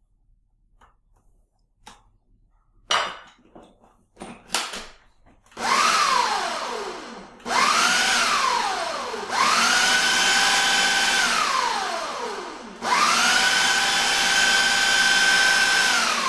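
Ninja blender pulsing cheesecake batter. A few knocks come first, then four runs of the motor: two short pulses whose pitch rises and falls, then two longer runs held at a steady pitch, the last winding down at the end.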